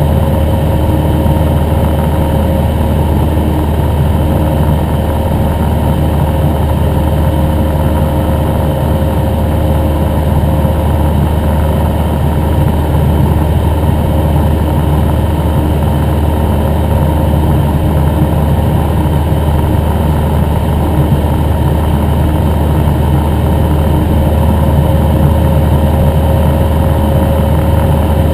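Cessna 172N Skyhawk's four-cylinder Lycoming piston engine and propeller running steadily in flight, heard from inside the cockpit as an even, unchanging drone.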